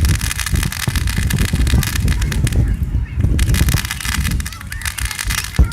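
Fireworks display: a dense run of crackling over low booms and rumble, easing off briefly about halfway through, with a sharp bang near the end.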